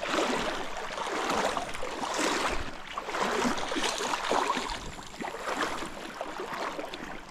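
River water splashing and rushing, swelling and fading in uneven surges about once a second.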